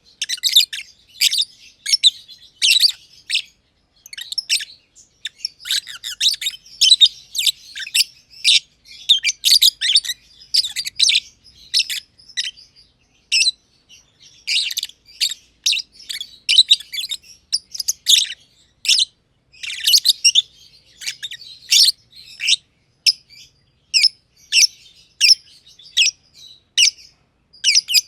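Black-masked lovebirds (personata) chirping: a steady run of short, shrill high-pitched calls, several a second with brief pauses.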